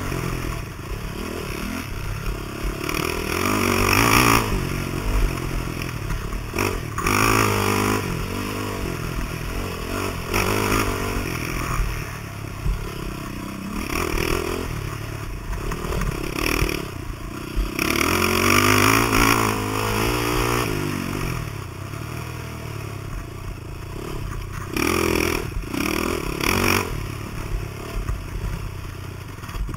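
Dirt bike engine being ridden hard, its pitch rising and falling every few seconds as the throttle opens and closes, with repeated bursts of rushing noise.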